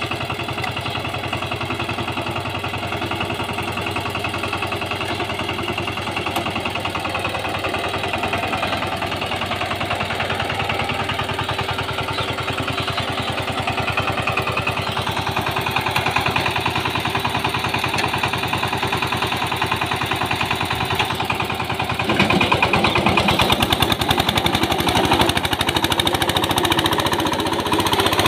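A VST Shakti 130 DI power tiller's single-cylinder diesel engine runs under load as its rotary tiller churns soil, with a rapid, even chugging beat. It gets louder about three quarters of the way through.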